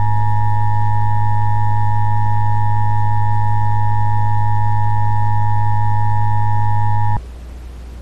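Emergency Alert System attention signal: the two-tone alarm of 853 Hz and 960 Hz sounded together, held steady, which cuts off sharply about seven seconds in, leaving a low hum.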